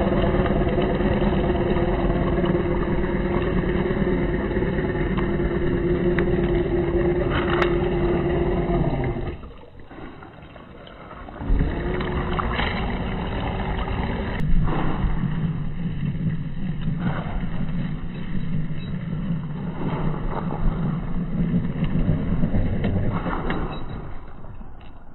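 RC scale truck's electric motor and gear drive whining steadily as it drives through muddy water. The motor stops for about two seconds near the middle, then starts again.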